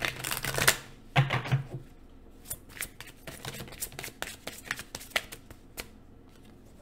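A deck of oracle cards being shuffled by hand: two short rustles, then a run of quick, irregular card flicks and taps.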